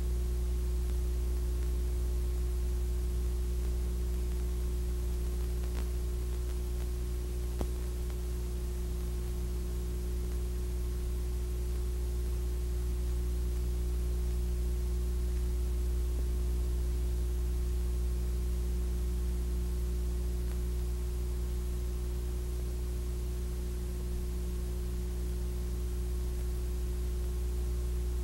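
Steady electrical hum with a faint hiss and no other sound: the Super 8 film is silent, so only the hum of the transfer is heard.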